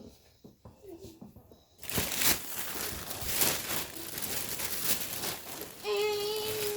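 Loud crinkling and rustling, as of plastic or paper wrapping being handled, starting about two seconds in after some faint small knocks. Near the end a high, steady, voice-like tone is held for about a second.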